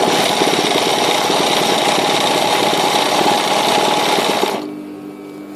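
Sewing machine stitching at high speed during free-motion embroidery, a rapid steady chatter of needle strokes. It stops about four and a half seconds in, leaving a quieter steady hum.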